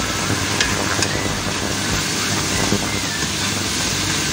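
Sliced pork and chicken cartilage sizzling steadily in hot oil in a wok, with a couple of light clicks about a second in.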